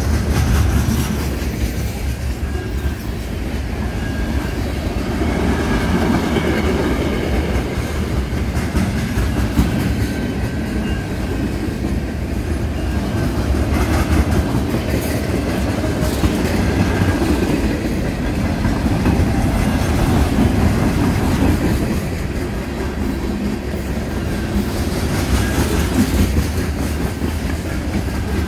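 Freight cars rolling past close by: a steady rumble of steel wheels on the rails, with clacking over rail joints and scattered clanks, and at times a faint high wheel squeal.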